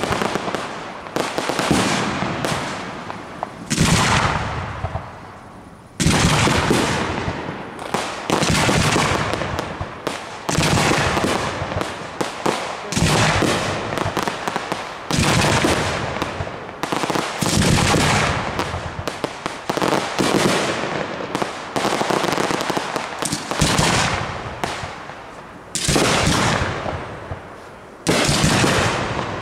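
Aerial firework shells bursting in quick succession, often more than one bang a second, each trailing off, with a short lull a few seconds in.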